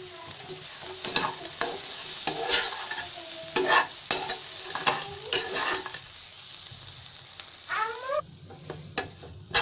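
Spatula scraping and turning instant noodles with egg and vegetables in a nonstick frying pan, with the food sizzling underneath. The scrapes come irregularly, most thickly in the first six seconds.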